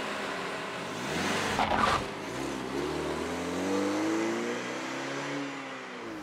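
A car engine accelerating away: a short rush of noise about a second and a half in, then the engine note rising in pitch and falling again as it fades.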